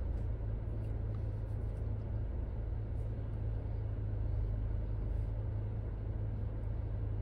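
Proton X70's engine idling, heard from inside the cabin as a steady low hum.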